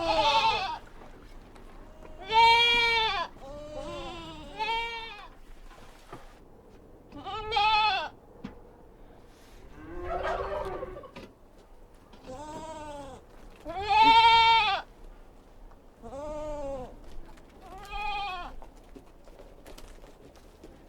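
Baby goats (kids) bleating, about ten separate calls each lasting under a second, one every two seconds or so. Each bleat's pitch rises and then falls, and a few calls overlap.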